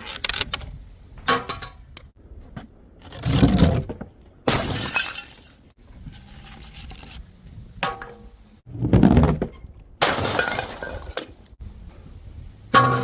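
Glass bottles smashing one after another: several loud crashes of breaking glass, some with a heavy thud and some with a scattering spray of shards, between smaller clinks. The last crash near the end rings briefly.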